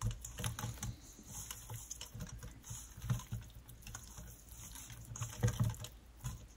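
Hands mixing raw chicken drumsticks with dry spices in a stainless steel bowl: irregular soft slaps, squelches and clicks as the pieces are turned and rubbed.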